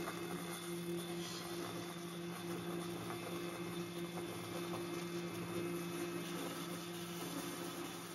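Bandsaw running with a steady motor hum while its blade cuts a curve through an end-grain hardwood chopping board, giving a continuous even hiss of sawing.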